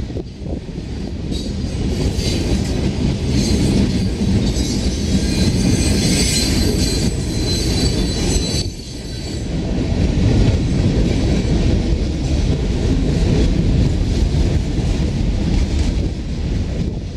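Freight train cars rolling past: steel wheels rumbling and clicking over the rail joints, with a high wheel squeal from about 2 to 8 seconds in.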